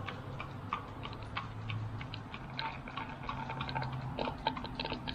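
Uneven run of sharp metallic clicks, a few a second, from a ratcheting hand tool driving in screws.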